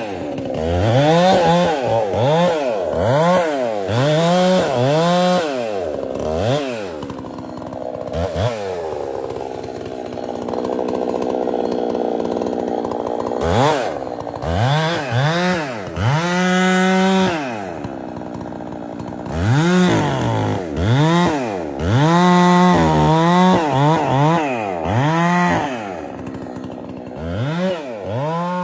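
Chainsaw engine revved up and down over and over in quick throttle blips, its pitch rising and falling about once a second. For several seconds in the middle it holds a steadier, lower pitch, then the revving resumes.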